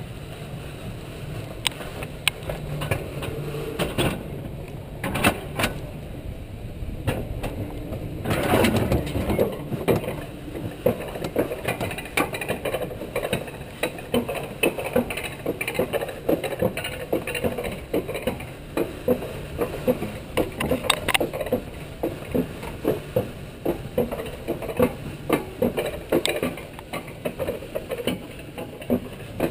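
Alpine mountain coaster sled riding its metal rail track: a steady rattle and rumble from the wheels, with frequent sharp clicks and knocks as it runs over the track. It gets louder for a second or two about a third of the way in.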